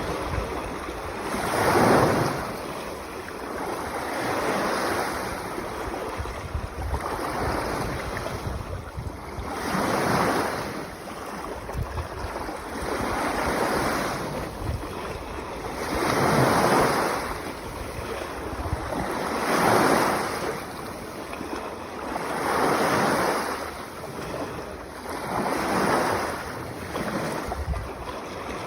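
Mediterranean sea waves washing onto the shore in a steady rhythm, each surge swelling and fading about every three seconds.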